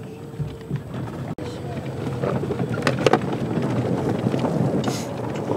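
Open side-by-side utility vehicle driving over rough dirt: engine and wind noise that build up after about two seconds, with a few sharp knocks and clatters from the ride.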